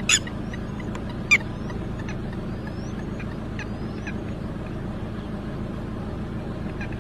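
Red-wattled lapwing giving two loud, sharp calls about a second apart near the start: the agitated calling of a parent that has lost its chick. Fainter short rising chirps run through the first few seconds over a steady low rumble.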